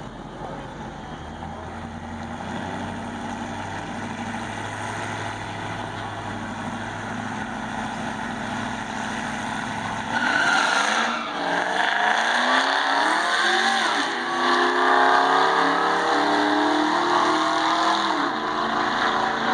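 Diesel pickup truck's engine idling steadily at the drag strip start line, then about halfway through launching at full throttle: the engine note jumps in loudness and rises, falls back and climbs again through several gear shifts as the truck accelerates down the track.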